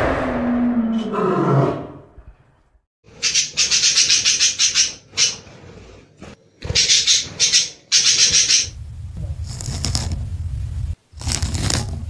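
A young lion's growl, falling in pitch, fades out about two seconds in. About a second later a run of raspy sulphur-crested cockatoo screeches follows, ending near nine seconds, and a low rumble fills the last few seconds.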